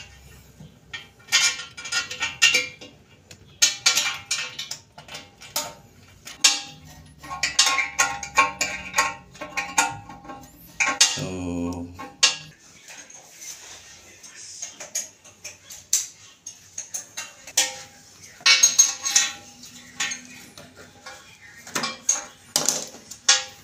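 Metal hand tool clicking and scraping against a screw in the base of a porcelain toilet bowl as the bowl is screwed down to the floor, in irregular clusters of sharp clicks. A brief squeak slides down in pitch about halfway through.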